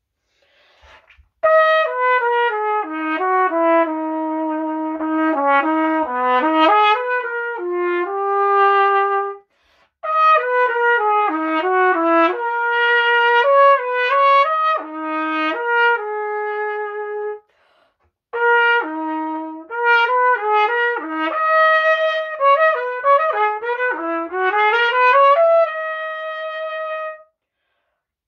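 Unaccompanied trumpet playing a melody in three phrases of changing notes, with short breaks between phrases about nine and seventeen seconds in.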